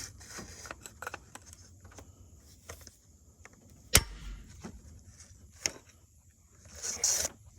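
Small metal clicks and scrapes of hand tools working at an engine's valvetrain to pry a rocker arm off its valve and lash adjuster, with one sharp metal clack about four seconds in and a brief scraping rustle near the end.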